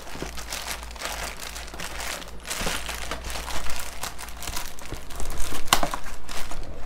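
Clear plastic bags holding plastic model-kit sprues crinkling as they are handled and shifted in the kit box, with a sharp click a little before the end.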